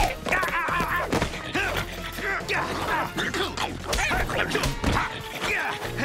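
Cartoon action music with scattered comic impact hits and short vocal sounds from the scuffling characters.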